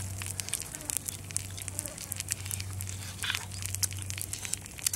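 People eating grilled fish by hand: scattered small clicks and crackles of chewing, tearing the fish apart and handling the leaves it is held on, over a steady low hum.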